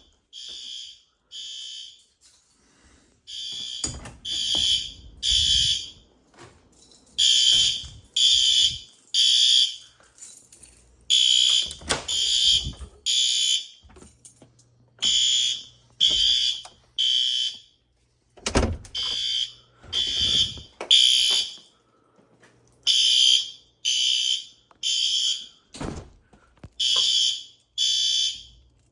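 Fire alarm horn sounding the temporal-three evacuation pattern: three short high-pitched blasts, a pause, then again, repeating about every four seconds. The horn is set to its low volume setting. A few dull thumps come between the blasts.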